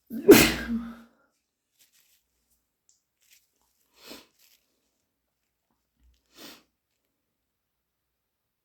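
A single loud, wet sneeze, induced and brought on by a cat allergy, lasting under a second. It is followed by two short, faint breath sounds, about four and six and a half seconds in.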